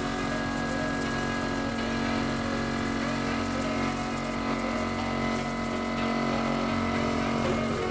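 Air compressor running steadily, supplying a paint spray gun, with a fast low pulsing under a constant hum.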